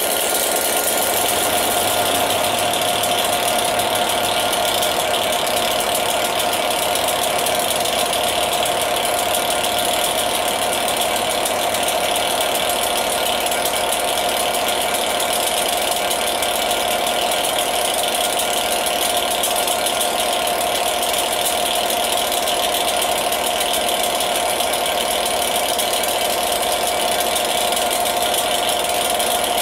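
Class 67 diesel locomotive, with its EMD two-stroke V12, idling steadily while standing at the platform, with a constant whine over the engine's running.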